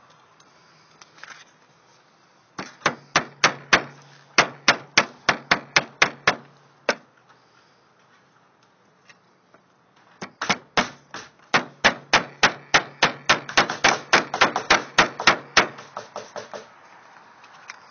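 Hammer blows in quick, regular runs of about four or five strikes a second: a run of about four seconds, a pause, then a longer run of about six seconds.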